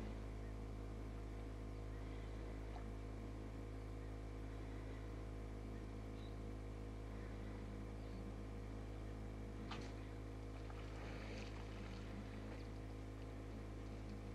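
Steady low hum of an engine idling, unchanging throughout, with a single sharp click about ten seconds in.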